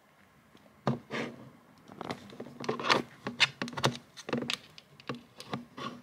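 Camera batteries and their charger being handled: a series of irregular, sharp clicks and knocks as the batteries are pulled out and pushed into different charger slots.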